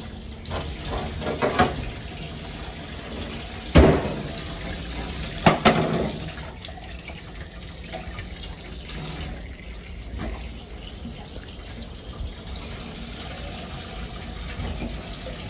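Tap water running into a stainless steel sink and splashing over a skinned rabbit carcass as it is rinsed by hand, with a few sharp knocks about four and six seconds in.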